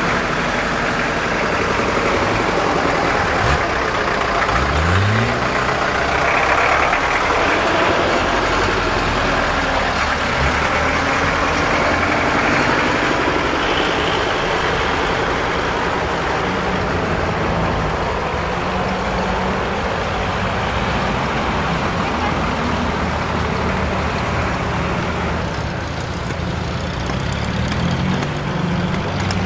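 Off-road truck engine working, revving up twice a few seconds in, then running on steadily.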